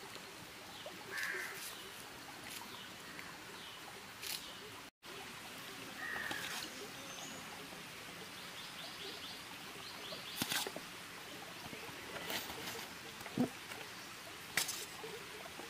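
Quiet outdoor ambience with a few short bird chirps and several light clicks in the second half. The sound drops out for an instant about five seconds in.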